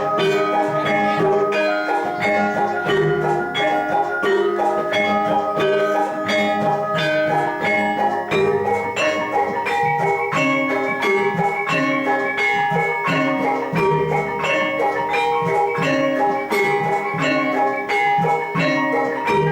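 Javanese gamelan ensemble playing jathilan accompaniment: bronze metallophones and gongs struck in a fast, steady pattern of ringing pitched notes.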